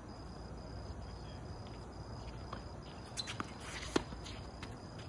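A tennis ball struck by a racket, one sharp pop about four seconds in, with a couple of fainter knocks of ball or shoes on the hard court just before it, over a steady low background hum.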